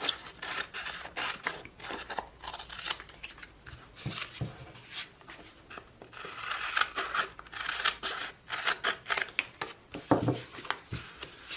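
Scissors snipping through sheets of paper planner stickers to trim them, a run of many quick cuts.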